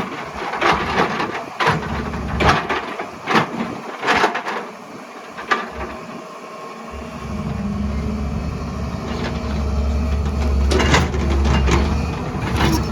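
Excavator working rocky ground: irregular knocks and scrapes of the bucket against rock and soil, then about seven seconds in the diesel engine's steady low drone comes up loud beneath them.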